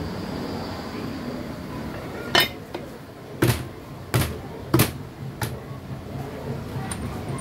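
Aluminium crankcase halves of a Yamaha 40 hp two-stroke outboard powerhead knocking and clinking as the cylinder block is seated over the crankshaft. Five sharp metal knocks come between about two and five and a half seconds in, over a low steady workshop hum.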